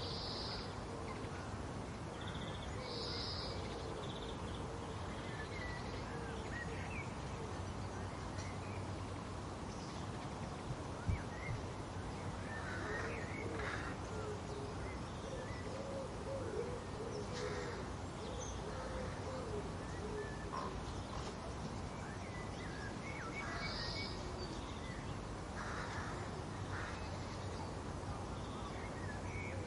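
Garden ambience: a steady low background hum with scattered bird calls and chirps, and a lower, wavering call in the middle. A single sharp tick comes about eleven seconds in.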